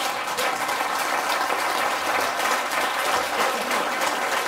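Audience clapping and laughing, a steady dense patter of many hands.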